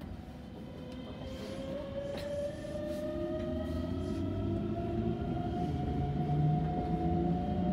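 Electric train accelerating from a stop, heard from inside the front car: the traction motors' whine rises slowly in pitch and grows louder over the rumble of the wheels on the rails.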